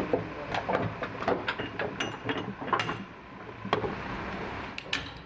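Irregular run of small clicks and knocks, some with a brief metallic ring: metal parts and hand tools being worked, over a low machine rumble that fades about three seconds in.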